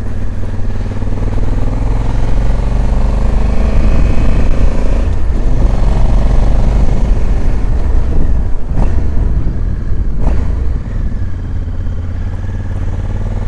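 Motorcycle engine running as the bike pulls up a steep road, its pitch rising for a couple of seconds early in the climb. Two short knocks come a second and a half apart in the second half.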